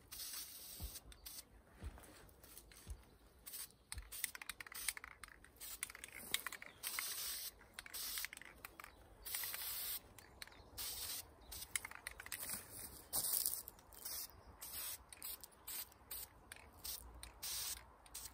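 Dry leaves and mesh fabric rustling in many short, irregular bursts as hands tuck leaves into the elastic loops of a ghillie suit.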